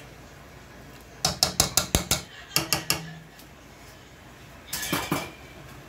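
A metal wire potato masher clacking against a metal cooking pot of pinto beans: a quick run of about seven sharp clacks, then three more, and a short rougher rattle near the end.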